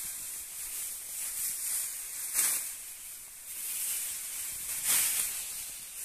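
Ripe rice stalks being cut by hand with a sickle: a rasping swish with each stroke, twice about two and a half seconds apart, over a steady rustle of dry straw.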